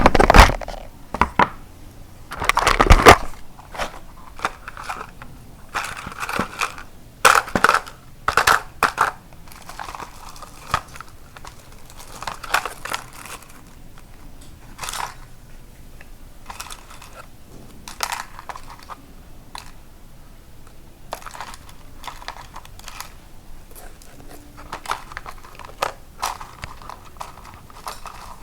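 Handling noise: crinkling and rustling with scattered clicks and taps as small parts and their packaging are handled, loudest in the first three seconds and sparser afterwards.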